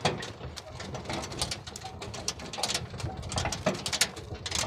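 Camel cart rattling as it is pulled at speed over a sandy track: irregular quick clicks and knocks from the metal frame and wheels over a low rumble.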